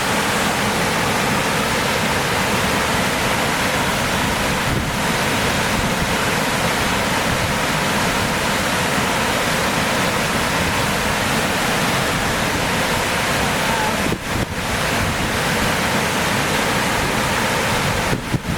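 Ohko no Taki waterfall's falling water, a loud, steady, even rush, with brief dips in level about fourteen seconds in and near the end.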